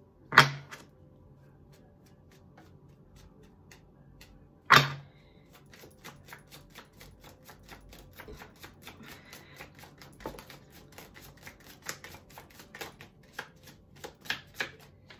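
Tarot cards being shuffled and handled: two sharp knocks, then a long run of quick, light clicks that grows busier toward the end.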